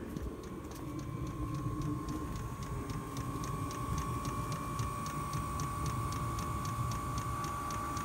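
Chinese 5 kW diesel air heater during start-up: its fuel dosing pump ticks in a rapid, even rhythm over the steady whine of its blower fan.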